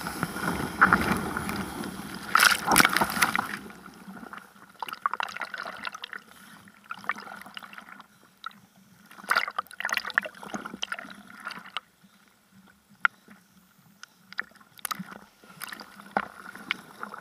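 Seawater sloshing and splashing right at a camera held at the water's surface. It is a loud rush of water for the first four seconds or so, then quieter drips and small splashes.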